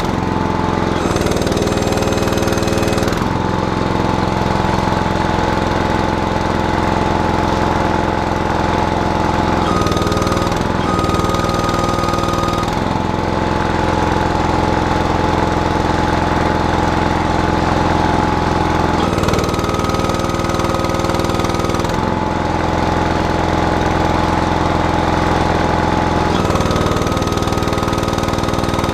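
Small backhoe's engine running steadily with its hydraulic system under load. About every eight or nine seconds, four times in all, a high squeal sounds for two or three seconds as pressure builds; the owner is unsure whether the squeal is the relief valve opening at its 2400 psi setting.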